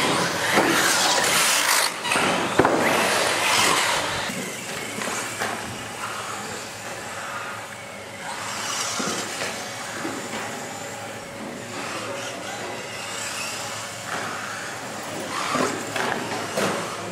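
RC model cars driving laps on an indoor floor track, their motors and tyres making a steady running noise, with a couple of sharp knocks about two seconds in.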